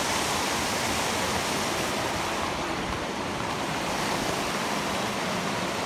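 Mountain stream rushing over boulders in small cascades: a steady rush of water with no breaks.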